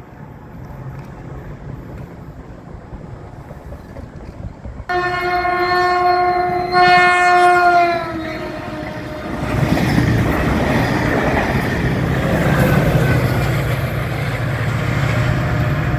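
Caltrain horn sounding at a grade crossing about five seconds in: a loud blast of about three seconds with a brief break near its middle, dropping in pitch as it ends. The train then passes with a loud rush, low rumble and clickety-clack of wheels on the rails.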